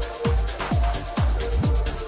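Electronic dance music with a steady kick drum, about two beats a second, under a synth line.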